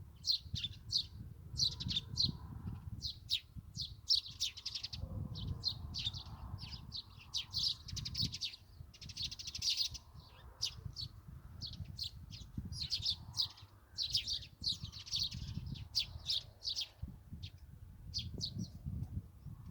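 Small songbirds chirping and twittering in quick, high-pitched bursts over a low background rumble.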